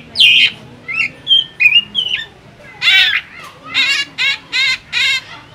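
Caged drongo singing a varied string of harsh, squawky calls and short clear whistles, then a run of about five buzzy notes, roughly three a second, in the second half.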